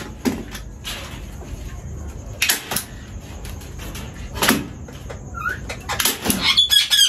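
Hand tool knocking as wire mesh is fastened onto a wooden cage-door frame: a handful of separate sharp strikes a second or two apart. High bird chirps come near the end.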